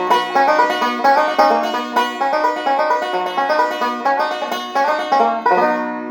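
Background music of fast plucked-string picking, ending on a chord that rings out and fades from about five and a half seconds in.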